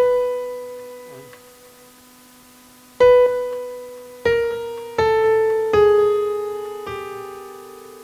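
Piano-voice notes triggered from an Alesis V49 MIDI keyboard as its keys are pressed one at a time to test whether they work: a note rings and fades, is struck again about three seconds in, then four single notes step down in pitch about once a second, the last one fading out slowly. A steady low hum runs underneath.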